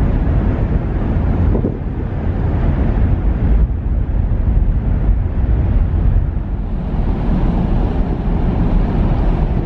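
Wind buffeting the microphone on the open deck of a moving ferry: a loud, steady low rumble, mixed with the ship's running noise and the wash of water.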